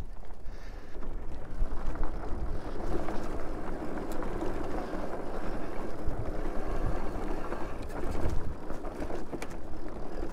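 Super73 electric bike riding over a bumpy dry dirt trail: steady tyre noise on the packed dirt with a low rumble, and the bike knocking and rattling now and then over the bumps.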